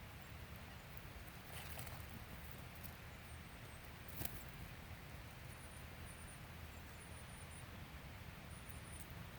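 Faint outdoor ambience over a steady low hum: soft rustling and scattered light clicks, one sharper click about four seconds in, and a few faint, very high, short chirps.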